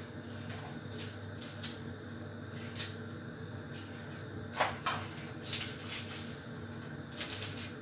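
Scattered light clicks and knocks of small bowls and a plastic food container being handled on a kitchen counter, over a steady low hum.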